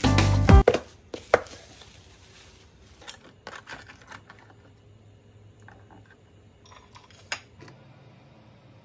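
Background music cutting off about half a second in, then faint kitchen handling: a few sharp clicks and knocks from a plastic food container being opened and handled, with one more sharp click near the end.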